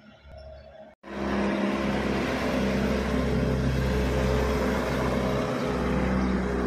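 An engine running steadily with a low hum, starting abruptly about a second in.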